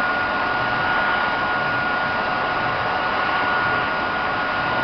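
Vacuum cleaner running steadily: an even rushing of air with a thin, steady high whine from the motor.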